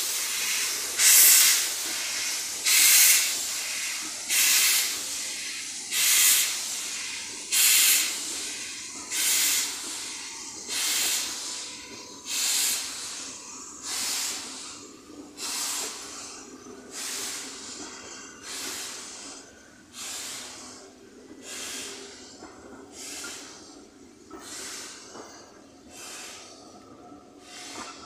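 Steam locomotive exhaust chuffing slowly and evenly as it pulls away with a train of coaches, one beat about every one and a half seconds, the beats growing fainter.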